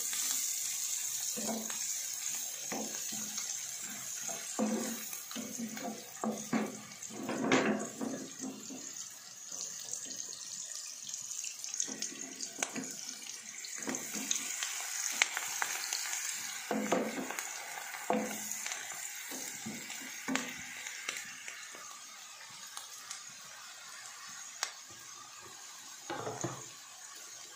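Julienned carrots and mushrooms sizzling as they are stir-fried in hot fat in a nonstick pan, with a spatula scraping and knocking against the pan at irregular moments. The sizzle is a steady high hiss that gets quieter in the second half.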